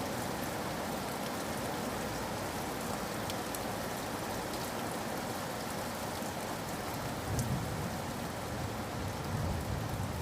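Steady rain falling in a forest, with single drops ticking close by. A low rumble swells about seven seconds in and again near the end.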